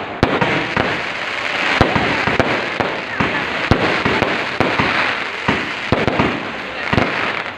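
Many fireworks and firecrackers going off at once: a dense, continuous crackle with frequent sharp bangs, several a second.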